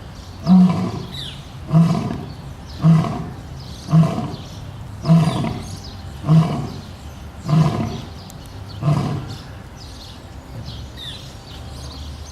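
Lion roaring: a run of eight deep, grunting roars, about one a second with the gaps slowly lengthening, each a little weaker, trailing off around nine seconds in.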